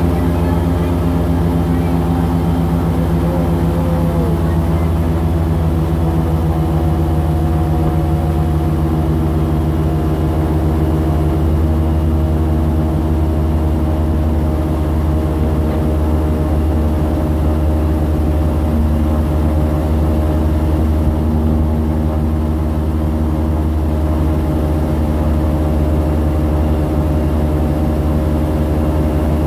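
Airboat's engine and air propeller running at a steady cruising speed, loud and even with a constant pitch.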